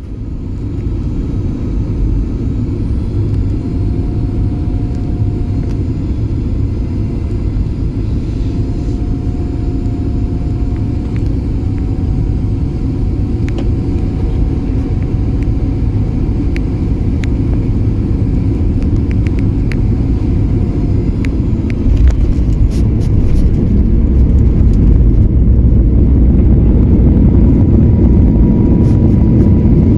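Cabin rumble of a Boeing 737-8200's CFM LEAP-1B engines and airflow, heard from a passenger seat. About three-quarters of the way through, the rumble suddenly gets louder, with a burst of rattles. Near the end an engine tone rises and then holds steady.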